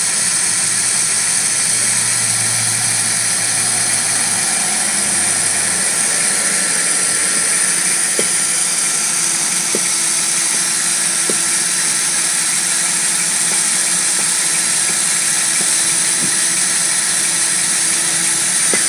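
Cordless drill running steadily under load, its bit boring into a painted metal sheet.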